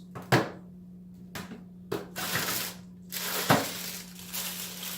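Plastic canister-filter hoses and parts being handled and unpacked: a few sharp plastic knocks and clatters, the loudest about a third of a second in and about three and a half seconds in, with rustling of packaging between them.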